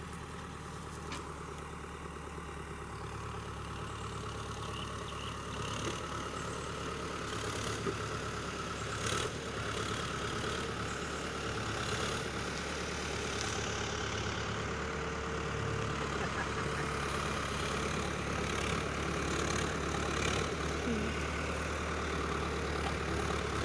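Iseki 7020A tractor's diesel engine running steadily while it pulls a disc plow through the soil, growing a little louder as it goes, with a few sharp knocks from the disc gangs.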